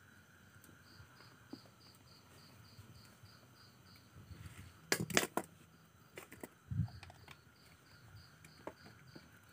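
Night insects chirping in a steady pulsed rhythm, about four to five chirps a second. A short burst of sharp clicks comes about five seconds in, and a dull thump follows near seven seconds.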